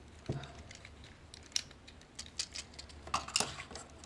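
Plastic parts of a Takara Masterpiece MP-25 Tracks transforming robot figure clicking and rattling as they are handled and moved, a handful of separate clicks with a sharper cluster about three seconds in.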